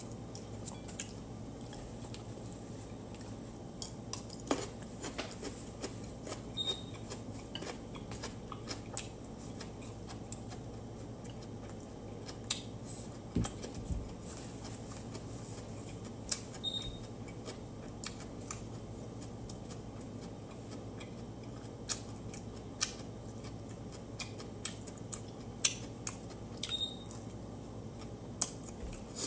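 A person eating with chopsticks: scattered sharp clicks of chopsticks against plates and bowls, and chewing, over a steady low hum. A dull knock sounds about halfway.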